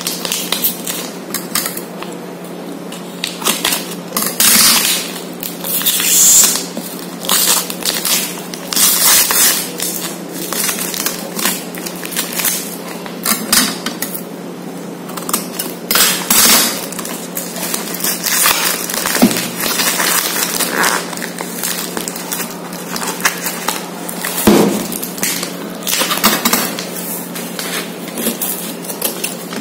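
A cardboard parcel being unpacked by hand: irregular bursts of tearing and crackling as packing tape and cardboard are ripped open and plastic wrapping is rustled and cut with scissors. A steady low hum runs underneath.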